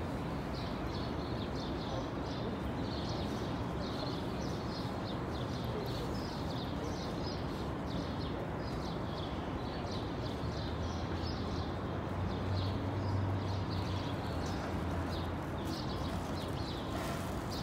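Outdoor city ambience: a steady wash of background noise with many small birds chirping over it, and a low hum swelling a little past the middle.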